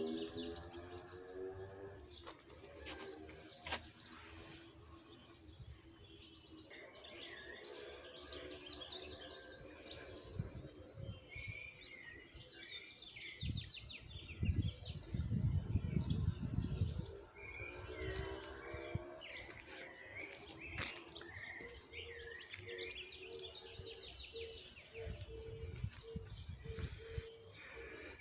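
Several songbirds chirping and singing, short calls repeating over and over. A low rumble runs for a few seconds about halfway through.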